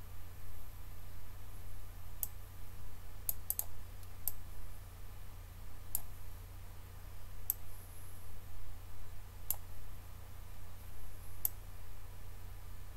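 Computer mouse clicking, about eight separate clicks at irregular intervals, two of them in quick succession like a double-click, over a steady low hum.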